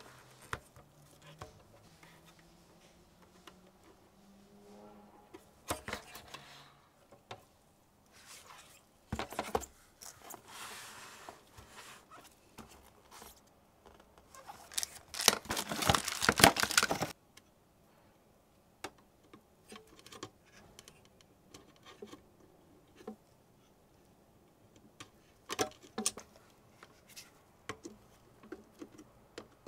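Handling noise: scattered clicks and knocks as gloved hands move an iMac G4's metal-caged optical drive, an IDE adapter and its cables. About halfway through, a loud rustle of packaging lasts about two seconds.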